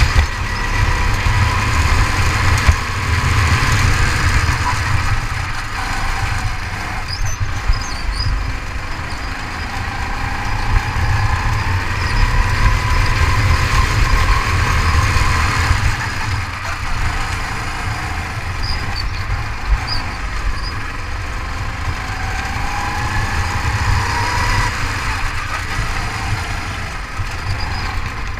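Go-kart engine heard from on board while lapping, its pitch rising and falling several times as the throttle is opened on the straights and eased for the corners, with wind rumbling on the microphone.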